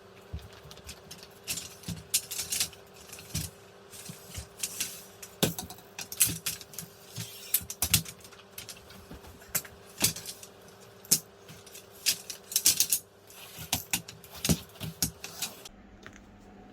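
Irregular light clinking and rattling of small hard objects being handled, some clicks coming in quick clusters, for about fifteen seconds.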